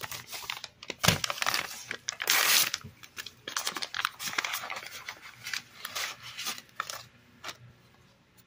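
A foil-lined Big League Chew gum pouch being torn open by hand and crinkled: a longer rip about two seconds in, with crackly rustling of the pouch around it that dies away near the end.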